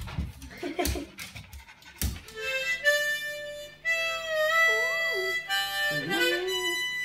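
A few short sharp knocks in the first two seconds, then a harmonica playing sustained chords. A small dog howls along from about halfway in, its howls rising and falling in pitch.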